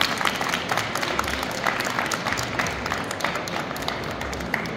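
Audience applauding with many hands clapping, the clapping thinning out near the end.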